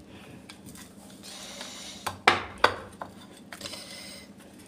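Metal spatula cutting through a crisp toasted sandwich on a stainless steel plate: a scraping crackle of the crust, then two sharp clinks of metal on the plate about two and a half seconds in.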